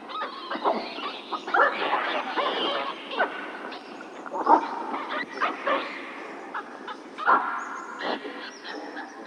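A group of monkeys calling: many short, overlapping squeals, yelps and chattering calls with quick rises and falls in pitch.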